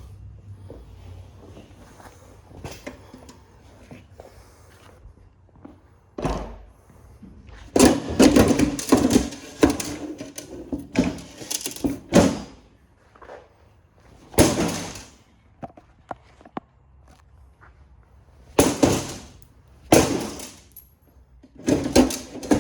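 Irregular knocks, thunks and clatters of printer parts being handled and pulled apart, in bursts with quieter shuffling between.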